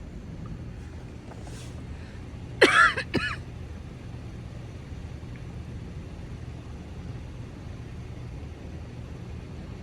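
A person coughs, one short hoarse cough in two or three quick parts about two and a half seconds in, over the steady low rushing noise of a storm.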